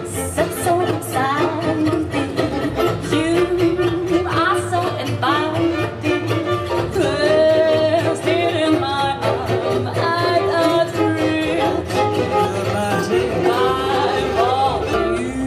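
Music: a fiddle playing sliding melody lines over guitar accompaniment.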